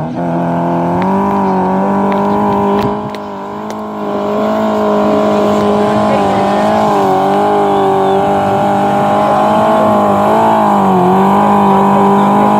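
An off-road vehicle's engine revving hard and held at high, fairly steady revs. The pitch wavers a little, sags briefly about three seconds in, and dips again near the end.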